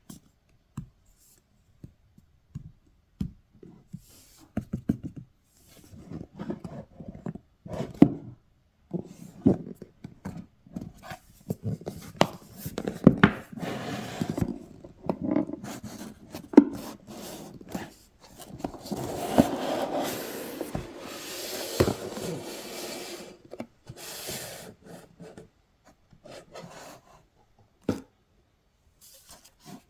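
Hands unpacking a headphone box: cardboard and packaging rubbing and sliding, with scattered taps and knocks. The rubbing is longest and loudest about two-thirds of the way through.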